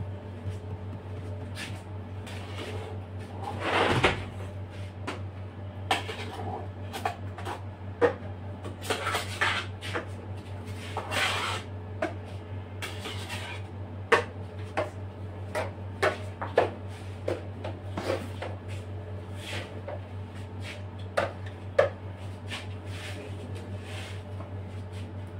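Metal palette knife and cake scraper working buttercream on a cake turntable: scattered sharp clicks and knocks of the blade against the tub and turntable, with a few longer scrapes, about 4 seconds in and again around 9 to 11 seconds. A steady low hum runs underneath.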